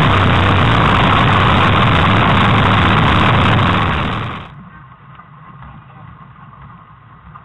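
Loud, steady engine and wind noise picked up by a camera riding on a moving vehicle, dropping away about four and a half seconds in to a faint hiss.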